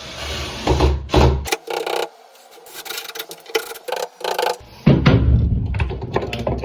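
Knife blade scoring and scraping into the wood of a door edge around the latch, in short irregular strokes with handling knocks; the score lines keep the router from tearing out the wood.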